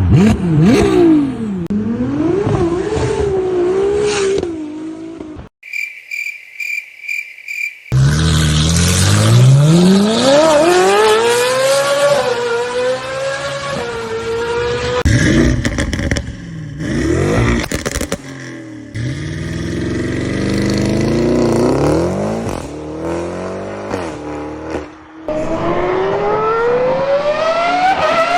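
Supercar engines in a string of separate clips, revved hard and accelerating, the engine note climbing steeply in pitch several times. About five seconds in, the engine drops out for a run of short, evenly spaced high beeps.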